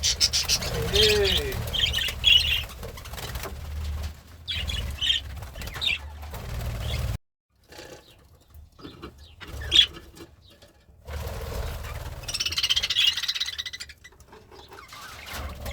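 Pet budgerigar chirping and chattering in bursts, with a sudden silent break about halfway through and a single sharp click near the end of the quiet stretch before the chirping resumes.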